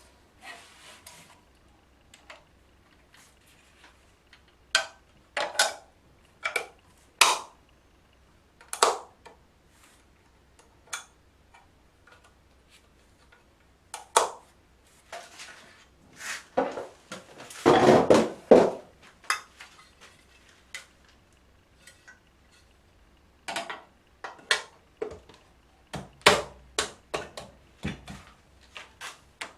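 Small hard parts being handled: irregular clicks, clinks and knocks with quiet gaps between them, and a denser clatter a little past the middle that is the loudest part.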